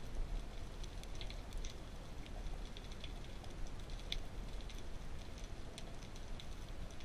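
Underwater ambient sound: a steady low rumble with scattered sharp clicks and crackles, irregular and a few each second.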